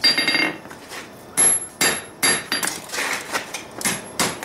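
Hand hammer striking a red-hot railroad spike on a steel anvil, drawing it narrower. One blow at the start rings briefly. After a short pause comes a steady run of blows, about two and a half a second.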